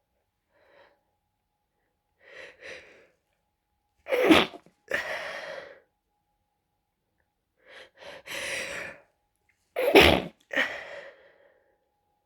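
Stifled sneezes from a person with a head cold and a congested nose, held back to stay quiet. Short catching breaths build up to a loud, sudden sneeze about four seconds in and another about ten seconds in, each followed by a softer rush of breath.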